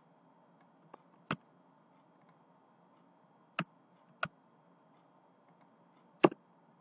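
A handful of sharp, isolated clicks from a computer mouse and keyboard, five in all, spread over several seconds with near silence between them; the loudest comes near the end.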